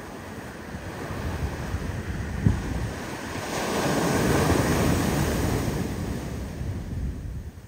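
Ocean surf: a wave breaks and washes up the beach, swelling about three seconds in and fading near the end, with wind buffeting the microphone.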